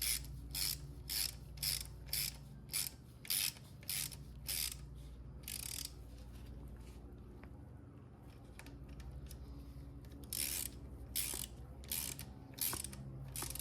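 Ratchet wrench turning a bolt, clicking in quick strokes at about two a second. The strokes stop for a few seconds midway, then start again, over a steady low hum.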